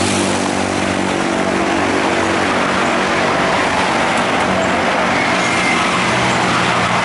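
Steady road traffic noise, with the even hum of a vehicle engine running close by.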